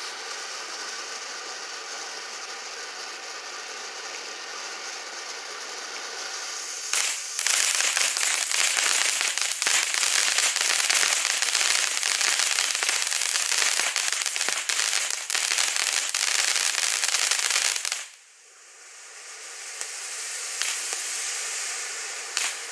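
200-gram peacock fountain firework spraying sparks: a steady hiss for the first third, then loud, dense crackling for about eleven seconds. Near the end it drops away suddenly and the hiss builds up again as the next stage starts.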